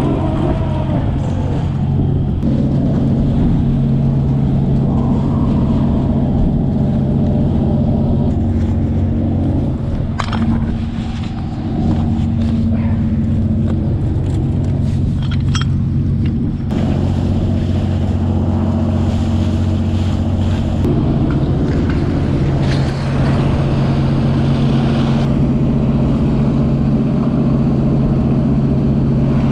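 Steady low drone of a fishing trawler's engine and deck machinery, with a few sharp knocks between about ten and sixteen seconds in. In the later part a hose sprays water over a bin of freshly caught pollock, adding a hiss.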